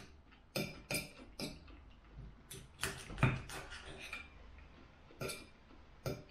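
Knife and fork clinking and scraping on a dinner plate as food is cut, in a run of short sharp strokes, the loudest cluster about three seconds in.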